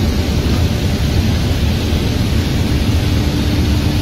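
Loud, steady cabin noise inside a tuned BMW M6 (E63) running flat out at high speed: engine, wind and tyre noise blended into an even rush with a heavy low rumble.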